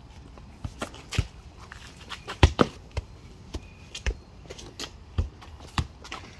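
Football being kicked and bouncing on asphalt: a string of sharp, irregularly spaced thuds, the loudest about two and a half seconds in.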